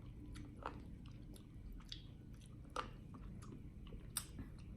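A person chewing food close to the microphone: faint, scattered wet mouth clicks and smacks.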